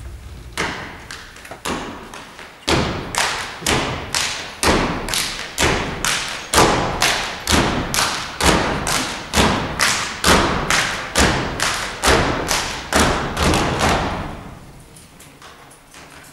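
A group of dancers doing stomp-style body percussion in unison: foot stomps, claps and slaps on the chest and thighs. A few scattered hits give way, about three seconds in, to a steady, even rhythm of about three beats a second, which stops about two seconds before the end.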